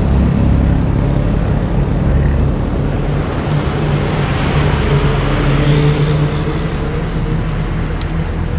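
Street traffic heard from a moving bicycle: a steady rush of road noise with a passing truck's diesel engine humming, loudest through the middle.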